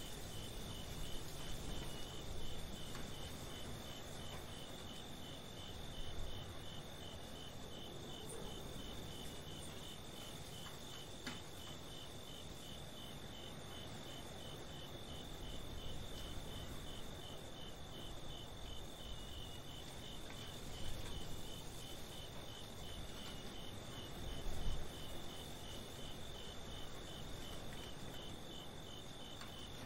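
Crickets chirping in a night chorus: one unbroken high trill and, just below it, a regular pulsed chirp, over a soft low rumble.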